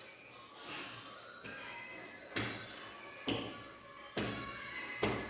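A series of sharp thuds evenly spaced a little under a second apart, four of them starting about two seconds in.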